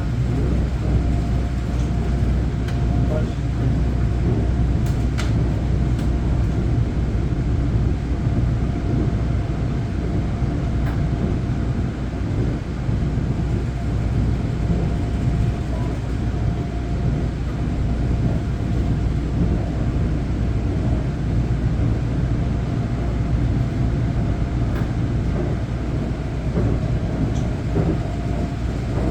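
Running noise heard from inside a moving electric commuter train: a steady low rumble of the wheels on the rails, with a faint constant whine above it.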